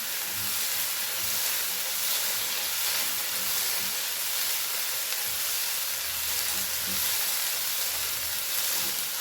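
Chopped tomato and ginger-garlic paste frying in coconut oil in a pan, a steady sizzling hiss as the tomato softens.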